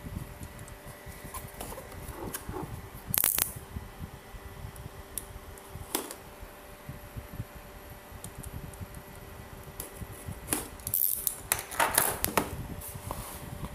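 A cardboard box is being handled and cut open: small rubbing and tapping of the card, with sharp scratchy slitting sounds about three seconds in, again at about six seconds, and in a cluster near the end, as a metal blade cuts along the box edge. A faint steady hum runs underneath.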